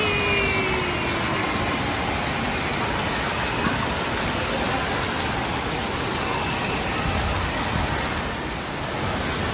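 Water-park water rushing and splashing in a steady, even wash.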